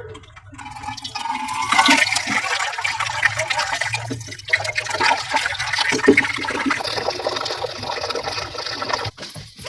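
Tap water running hard into a plastic jug, filling it and mixing in the medicine syrup already in the jug. The steady rush stops abruptly near the end.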